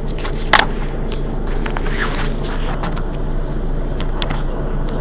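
Mercedes-Benz Citaro city bus's diesel engine idling steadily at a standstill, with a sharp click about half a second in and a few fainter ticks.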